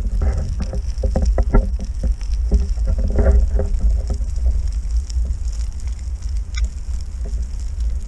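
Wind buffeting the microphone as a steady low rumble, with scattered clicks and knocks over it.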